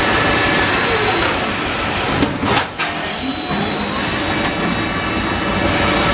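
Guardrail roll-forming machine running with a steady, loud mechanical din. A few sharp clanks come just over two seconds in.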